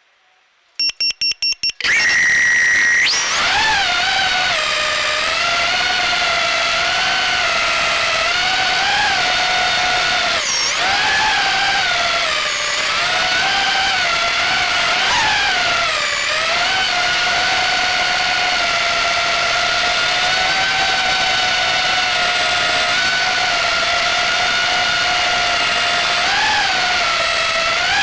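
Armattan Gecko 3-inch FPV quadcopter heard from its onboard camera: a quick run of electronic beeps about a second in, then the brushless motors and propellers spin up to a loud, steady whine whose pitch rises and falls with the throttle as it flies.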